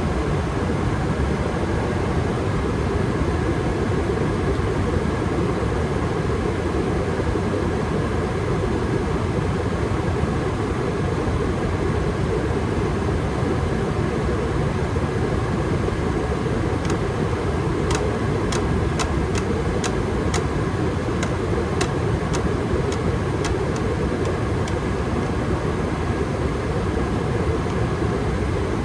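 Gas furnace running steadily at high fire, a constant low rushing noise. Past the middle, a run of a dozen or so sharp clicks comes over several seconds.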